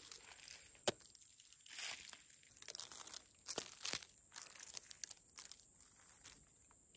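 Dry leaves and charred debris crunching and crackling in irregular bursts, with sharp clicks, one about a second in.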